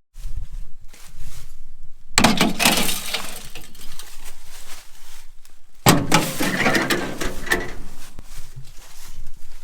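Metal clattering and clinking during hands-on work on a combine's belts and chains, with loud knocks starting about two seconds in and again about six seconds in.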